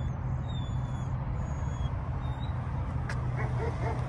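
Steady low hum of an idling vehicle engine, with a few faint high chirps in the first two seconds and a single click about three seconds in.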